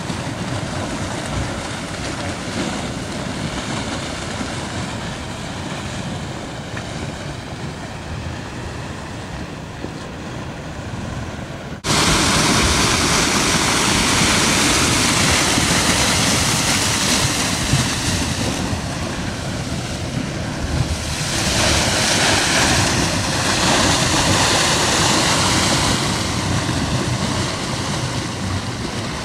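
Steady rushing noise of a flash flood's mudflow pouring across the valley floor. About twelve seconds in it switches abruptly to a louder, brighter rush that swells and eases a little toward the end.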